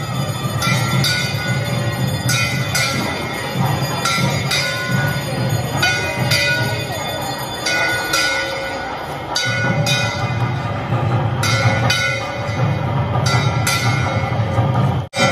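Temple bells ringing over and over at a steady pace, about one strike every three-quarters of a second, each strike leaving a ringing tone, over a low rumble.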